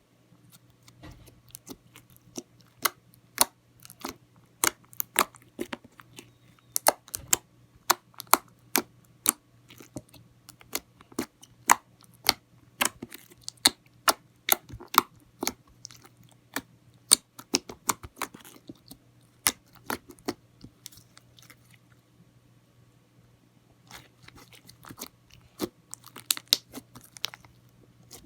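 Slime being squeezed and worked by hand, giving a rapid, irregular series of sharp wet pops and clicks as air pockets burst. The popping stops about 21 seconds in and returns as softer crackling a few seconds later.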